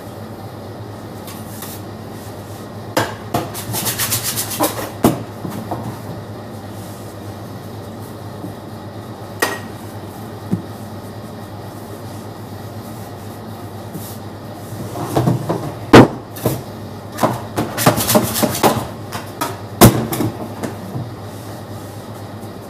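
Metal pizza peel and oven tools clanking and knocking at the oven, in scattered sharp hits that are loudest in the second half, over a steady low hum.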